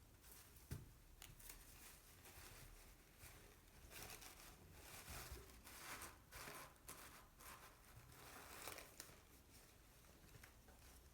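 Product packaging being handled and unwrapped: faint scratchy rustling in short strokes, busiest in the middle.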